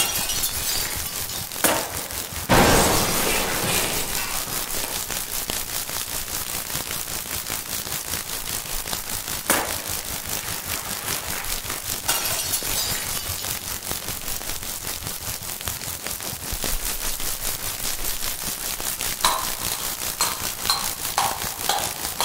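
Experimental noise composition: a dense, crackling texture of rapid clicks and hiss, broken by a few sudden crash-like hits in the first few seconds and again about ten and twelve seconds in, with short pitched blips joining near the end.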